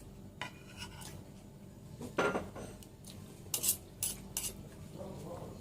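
Cutlery clinking and scraping against plates and bowls while eating, a handful of sharp clinks, the loudest a little over two seconds in and a cluster near the four-second mark.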